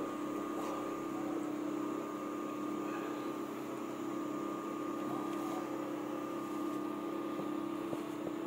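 Steady mechanical hum with a constant low tone and a fainter, higher constant tone.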